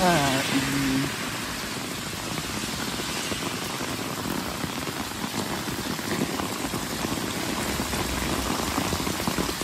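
Heavy rain pouring down steadily, an even hiss.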